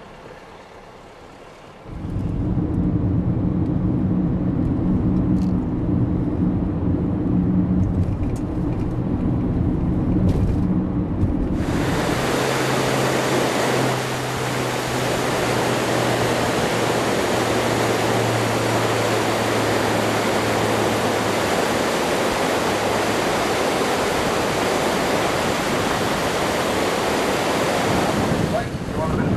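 A low, steady engine drone, then from about midway a loud, steady rush of wind on the microphone, with a fainter engine hum underneath that drops out later on.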